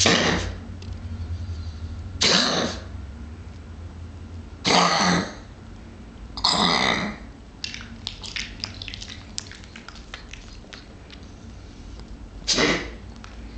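A pet coughing: five short, noisy coughs, about two seconds apart at first, then a longer pause before the last. Faint clicks come in the pause.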